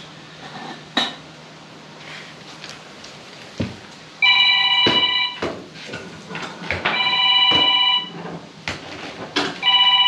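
A phone ringing three times, each ring about a second long and the rings about two and a half seconds apart, with scattered knocks and clanks between them.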